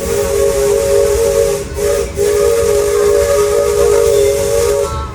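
Steam locomotive chime whistle on the Disneyland Railroad, sounding several notes at once over a steady hiss of steam. It gives long blasts with brief breaks about two seconds in, and stops just before the end.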